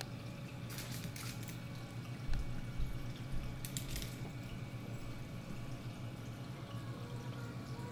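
Reef aquarium water circulation: water trickling and dripping over a steady low hum, with a few splashy patches about a second in and about four seconds in. A few soft low bumps come between about two and four seconds in.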